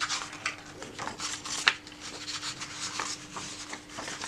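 Pages of a hardcover picture book being turned by hand: stiff paper rustling and flapping in a run of short crackles, the sharpest about a second and a half in.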